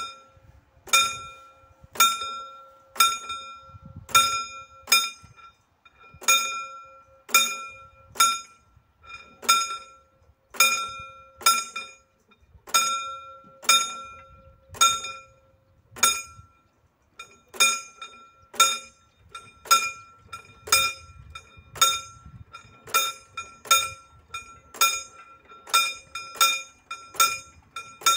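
Mechanical pre-warning bell (předzváněč) of a PZM-1 level-crossing barrier ringing in single ringing strokes, about one a second at first, then quicker and less even from about halfway through. The ringing warns that the barriers are about to come down.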